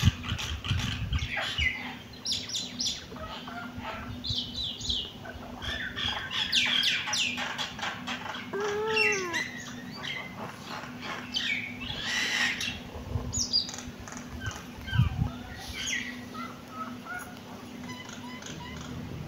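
Several young kittens mewing and squeaking over one another in many short, high-pitched cries, with a few longer, lower mews near the middle.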